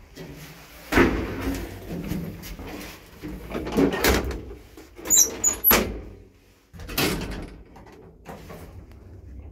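Doors of an old IFMA traction elevator being worked by hand: a series of bangs and metallic latch clicks as the wooden swing landing door is pulled shut and the car door closes, ending in a heavy thud about seven seconds in. A low steady hum follows.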